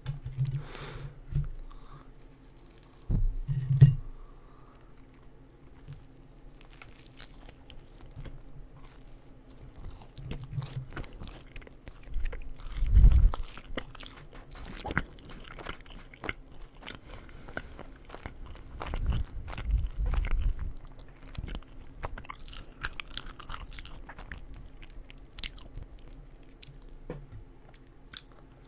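A person biting and chewing crunchy food close to the microphone: a stream of short, crackly crunches and wet mouth sounds, with a few louder low thumps about three to four seconds in, around thirteen seconds and around twenty seconds.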